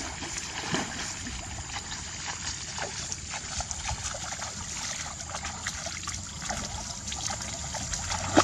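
Water trickling and splashing in small, irregular splashes.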